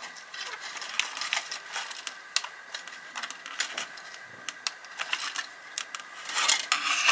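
Light, irregular plastic clicks and taps from a one-handed bar clamp being worked and handled on the plane's foam nose, with a louder rustle of handling noise near the end.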